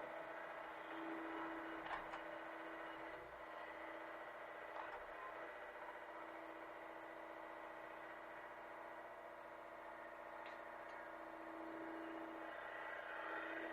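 Hitachi mini excavator's engine running steadily, with a few faint knocks.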